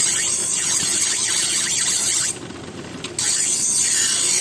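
Knife blade scraping against a sharpening tool: a steady, harsh, hissing scrape that breaks off for under a second about halfway through, then starts again.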